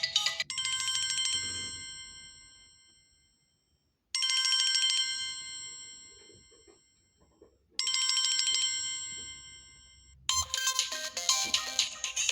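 Samsung Galaxy Grand Core ringtones playing. A melody cuts off about half a second in, then a single chime tone sounds three times, each fading away over about three seconds, before a different, quicker melody starts near the end.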